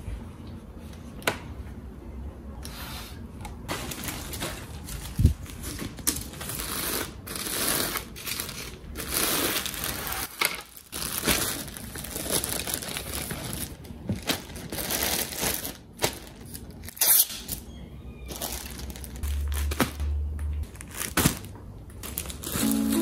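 Garment handling at a plastic folding board: fabric rustling and clear plastic bags crinkling as folded shirts are slipped into them, broken by several sharp clacks of the board's hinged plastic panels.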